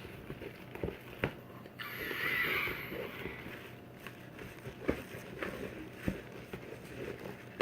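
Spoon stirring fluffy slime in a bowl: scattered light clicks and taps, with a brief hissing rush about two seconds in.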